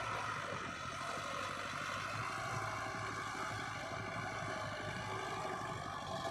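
Heavy diesel engine of construction machinery running steadily, a continuous even drone.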